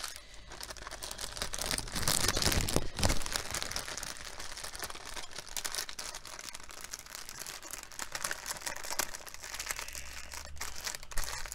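Plastic packaging crinkling as small bags of diamond-painting drills are handled and put away, with lots of small clicks and rustles, loudest about two to three seconds in.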